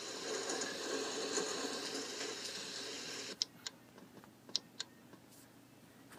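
A steady hiss of noise that cuts off with a click about three seconds in, followed by three or four short, sharp clicks.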